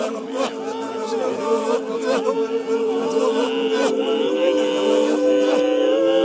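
A cappella voices singing a mournful, chant-like lament: a steady held drone with a voice wavering and sliding in pitch above it. About four seconds in, more voices join on long held notes, forming a close chord.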